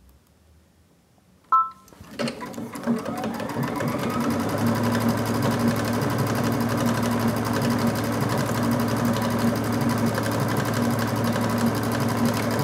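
Brother XV Dream Machine sewing machine: a short beep about a second and a half in, then the machine starts up, gathers speed over a couple of seconds and runs steadily with a fast, even needle rhythm as it sews a decorative stitch.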